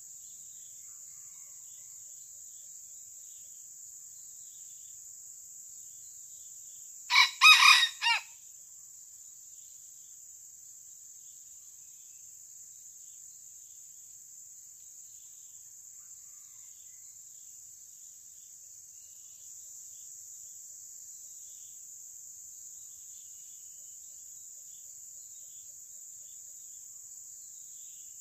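Red junglefowl rooster crowing once, a short broken crow of about a second, around seven seconds in, over a steady high-pitched drone of insects.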